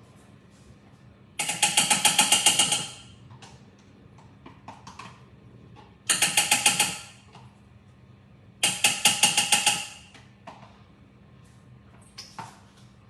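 A small kitchen appliance's motor run in three short bursts, each a second or so long, with a rapid rattling pulse of about ten beats a second.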